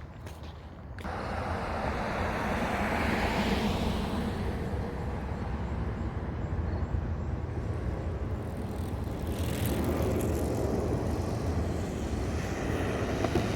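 Wowgo 3 electric skateboard rolling over pavement: a steady rumble of the wheels, with wind on the microphone, that swells about a second in.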